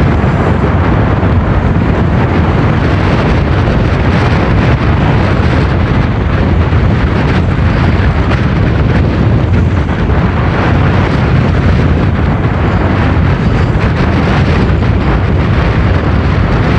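Strong wind buffeting a phone's microphone aboard a moving boat: a loud, steady rumbling roar that covers everything else.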